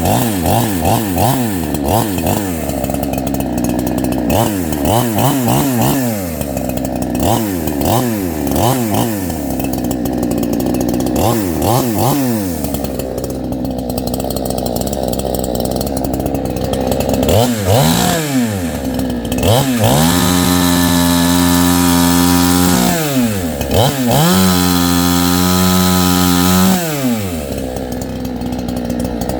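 CMA 6800 68cc two-stroke chainsaw running: blipped up and down in quick throttle revs, settling to idle, then held at full throttle twice for about three seconds each before dropping back to idle.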